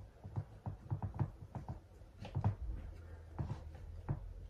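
Soft irregular taps, scrapes and rustles of hands pressing a plant cutting down into gritty potting mix in a glass pot, a dozen or so small knocks spread unevenly over a few seconds.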